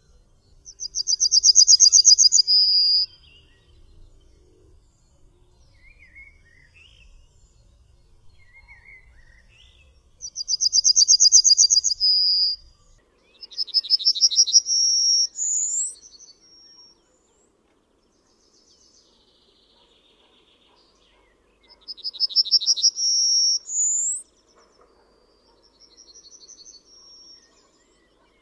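Yellowhammer singing: four song phrases, each a fast run of repeated high notes ending in a drawn-out note, two of them closing with a higher upward note. Faint chirps of other birds between the phrases.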